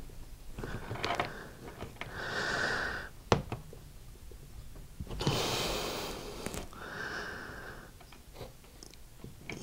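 A knife blade being worked along the glued seam of a plastic hot air rework wand handle to cut the adhesive, giving several rasping noises about a second long and a few sharp plastic clicks.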